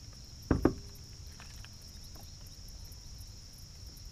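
A steady high-pitched insect chorus, with two sharp knocks close together about half a second in.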